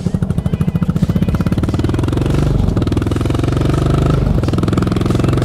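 Yamaha SR400's single-cylinder four-stroke engine through a Goods tapered cone slip-on muffler, pulling away. Its separate exhaust beats speed up and merge into a steady drone about two seconds in, with two brief dips in revs after that.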